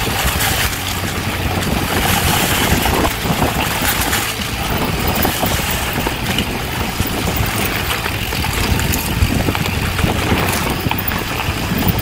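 Mountain bike running fast down a dirt singletrack: wind rushing over the camera microphone and tyres rolling over dry leaves and dirt, with the bike rattling and knocking over bumps.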